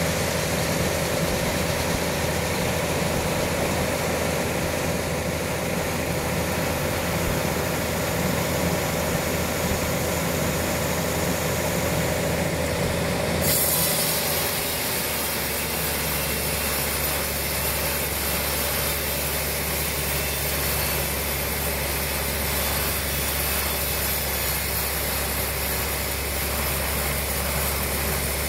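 Large industrial bandsaw mill running steadily, its blade sawing through a trembesi (suar) log. About halfway through, the sound changes suddenly and becomes hissier.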